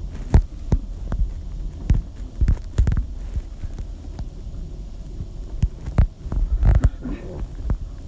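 Low, steady rumble of a moving car heard from inside the cabin, with irregular knocks and bumps scattered through it.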